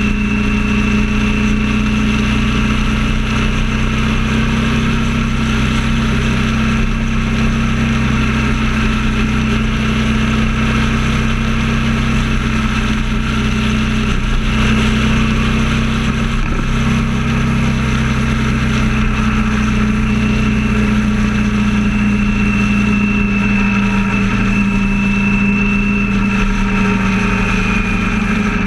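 Vehicle engine running at steady freeway cruising speed, with a constant drone and a steady rushing noise underneath. Near the end the engine's pitch drops slightly as it slows.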